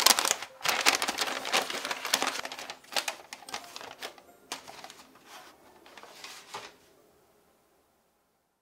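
Aluminium foil crinkling and crackling as hands press and fold it down. The crackle is dense at first, thins out after about four seconds and dies away well before the end.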